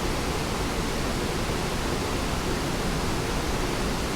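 Steady rushing roar of the Mae Klang waterfall, cascading water with no change in level.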